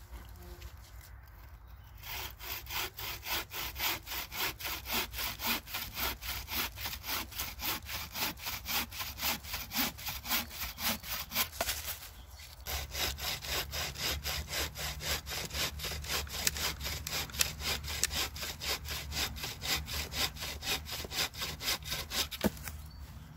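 Homemade bushcraft buck saw, a 21-inch saw blade in a wooden frame tensioned with cordage, cutting through a branch in fast, even back-and-forth strokes. The sawing starts about two seconds in, stops briefly about halfway through, then carries on.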